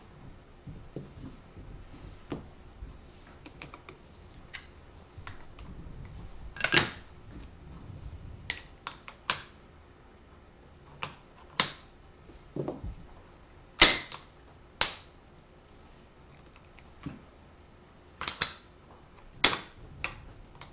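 Magnetic wooden building blocks clacking together as they are snapped into place: sharp clacks at irregular intervals, every second or two, with fainter taps and shuffling of wood in between.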